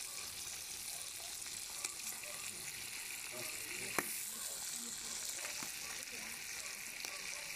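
Slices of pork fat frying in a cauldron over a wood fire: a steady sizzle with occasional sharp pops, the loudest about four seconds in.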